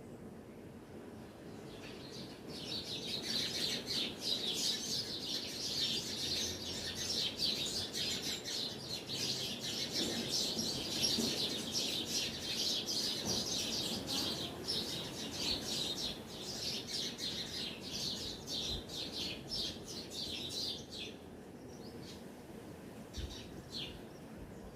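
Birds chirping in a dense run of quick, high notes that starts about two seconds in and thins to a few scattered chirps near the end.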